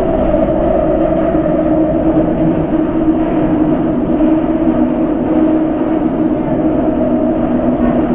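Shanghai Metro 07A02-type electric train running between stations, heard from inside the carriage: a loud, steady running noise with a steady hum in it.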